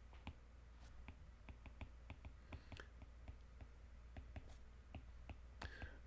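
Faint, irregular clicks, a few per second, of a stylus tapping and dragging on a tablet screen during handwriting.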